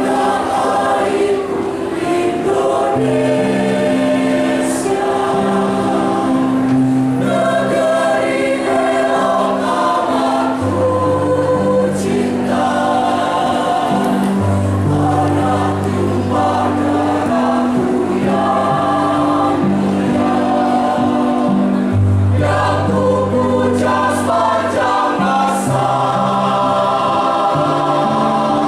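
Choir singing in several parts, in long held chords that move together every second or two over a low bass line.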